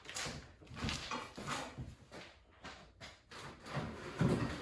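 Cardboard box and packaging being handled: a series of rustles and scrapes, with a heavier knock about four seconds in.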